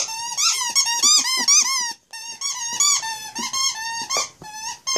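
Plush squeaky toy squeaking over and over in quick succession as a ten-week-old puppy chews on it, each squeak bending up and down in pitch, with a short pause about two seconds in.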